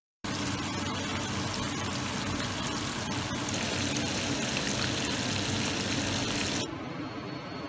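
Striped red mullet frying in hot oil in a pan, a dense, steady sizzling crackle over a low hum. About a second before the end it cuts off abruptly to a quieter hiss.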